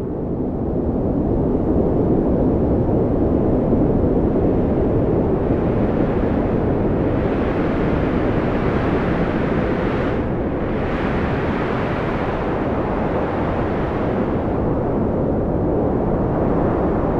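Strong wind blowing in a steady low rush, swelling into a stronger gust in the middle before easing back.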